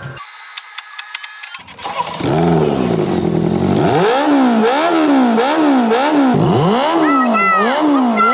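A car engine is cranked with a clicking for about two seconds, catches, and is then revved in quick repeated blips, the pitch rising and falling about one and a half times a second.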